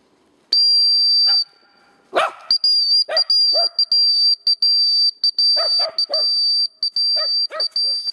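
A dog training whistle gives one long, steady, high blast about half a second in, then a string of short pips, calling the dog in. A liver-and-white spaniel lets out several short yelps and whines as it runs in to the whistle.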